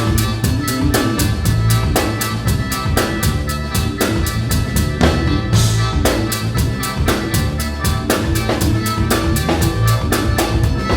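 Live band playing an instrumental passage driven by a drum kit, with a steady beat of about four strokes a second over a sustained bass line. A swell, like a cymbal, rises and stops about five and a half seconds in.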